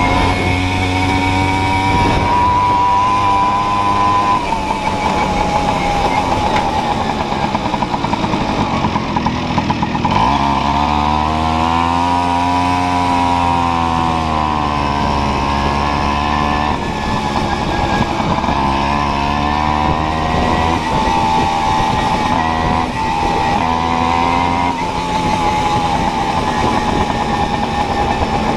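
Tomos Targa moped's small two-stroke single-cylinder engine running under way, its pitch rising and falling with the throttle. About a third of the way in it swells up in pitch and eases back down over several seconds.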